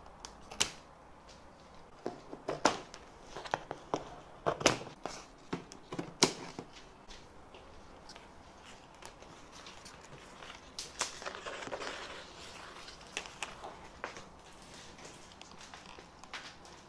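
Plastic packing straps on a large cardboard box being cut and pulled off: a run of sharp snaps and clicks, then a stretch of crinkling and rustling of strap and cardboard about eleven seconds in, and a few more clicks.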